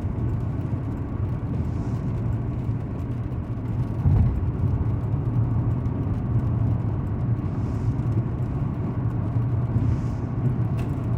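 Lorry cab noise while driving at highway speed: the diesel engine's steady low drone under road and tyre noise. There is a brief louder knock about four seconds in.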